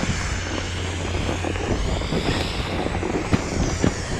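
Wind rushing over the microphone while sliding over groomed snow, with the hiss and scrape of edges on the snow and a steady low rumble.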